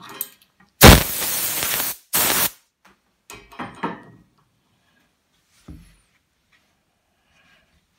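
Two blasts of air hissing across a carved wooden relief, a loud one of about a second and a short one just after, clearing chips from the carving. A few light scrapes and knocks follow.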